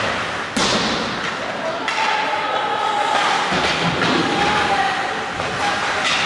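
Ice hockey game play: a sharp bang about half a second in and a smaller knock near two seconds, over the noise of skates and sticks on the ice, with voices calling out on the rink.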